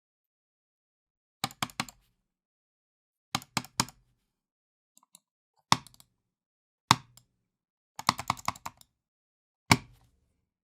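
Computer mouse being clicked hard and angrily: quick runs of rapid clicks about a second and a half in, at three and a half seconds and at eight seconds, with single loud, sharp clicks between them, separated by silence.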